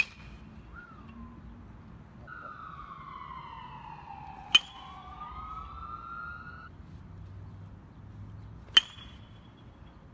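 Baseball bat hitting tossed balls three times, each a sharp crack with a short ringing ping: at the start, about four and a half seconds in, and near the end. Between the hits a siren wails, its pitch falling and then rising again.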